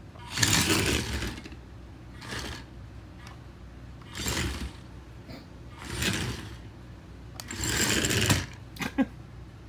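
Droid Depot R5-type toy astromech droid's drive motors whirring in short bursts, about five times, as it rolls and turns.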